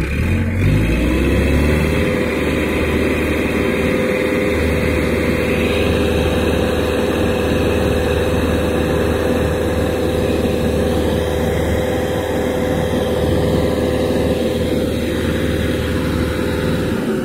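Diesel engine of a Hydra mobile hydraulic crane revving up at the start, then held at steady high revs, a low rumble with a steady whine over it.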